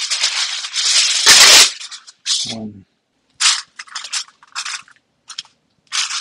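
Aluminium foil pulled off the roll and torn across the box's cutting edge, loudest about a second and a half in, followed by short crinkles of the foil as raw meat is pressed onto the sheet.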